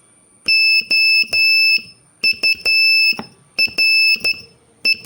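High-pitched Morse code beeps sending the word OURS: three long dahs, then dit-dit-dah, dit-dah-dit, and three quick dits near the end.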